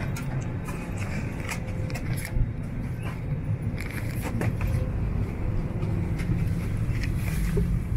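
Airliner cabin ambience: the steady low hum of the aircraft's cabin ventilation, with scattered light clicks and knocks.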